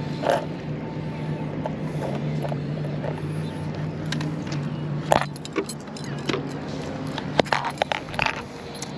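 Footsteps crunching on a beach of crushed oyster shells, with a string of sharp clicks and crunches in the second half. A steady low engine hum runs underneath and fades out about halfway through.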